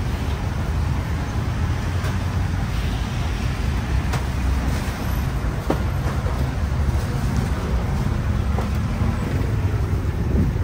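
Steady low rumble with a few light clicks, about four and six seconds in.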